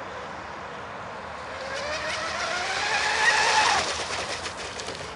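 Sigma Evo radio-controlled speedboat's motor whining at speed. It rises in pitch and loudness as the boat approaches, then drops sharply in pitch as it passes close by, about three and a half seconds in.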